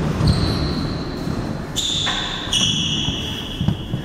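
A few dull thuds and shuffling on a wooden squash court floor. Steady high whistle-like tones come and go over them.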